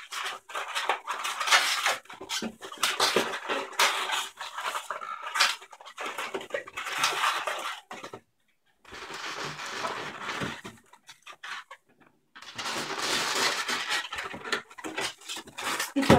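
Inflated latex modelling balloon (a 160) squeaking and rubbing against itself and the hands as it is twisted into bubbles, in spells broken by two short pauses about halfway through.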